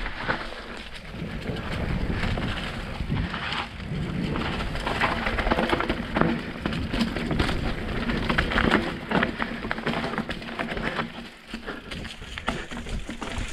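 Mountain bike descending a dirt forest single-track: tyres crackling and crunching over dry leaves, dirt and stones, with a steady low rumble of wind on the microphone.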